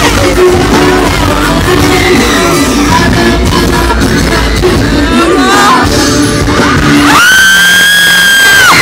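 Live pop-rock concert heard close up: band playing with a woman singing. Near the end a long, high, steady scream from a fan close to the microphone drowns out the music for about a second and a half.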